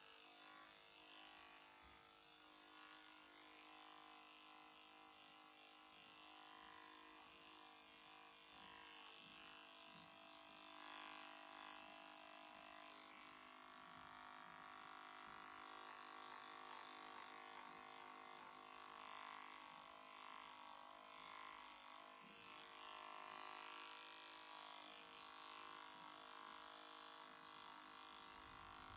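Faint, steady running of a small handheld electric horse clipper as it cuts the hair on a horse's face and throat.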